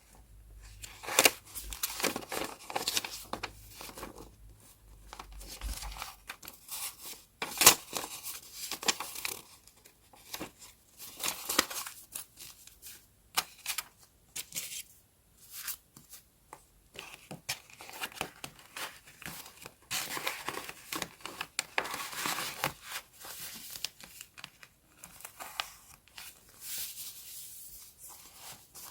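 Paper being handled close up for journal decorating: irregular tearing, crinkling and rustling, broken by sharp taps and clicks.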